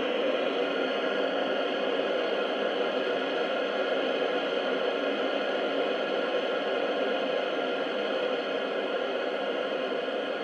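Steady hiss of band noise from a JRC NRD-525 shortwave receiver as it is tuned slowly across the 15-metre band, around 21.155 to 21.160 MHz, with no station coming through.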